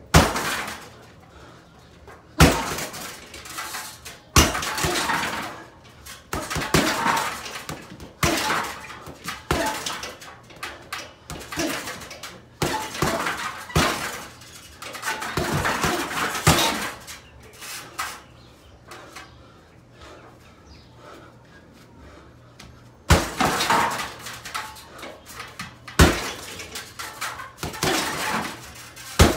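Kicks and punches smacking into an Everlast heavy bag hung on a free-standing metal stand, each strike followed by a clattering metallic rattle of the stand and its chains. The strikes come in flurries with a quieter pause past the middle.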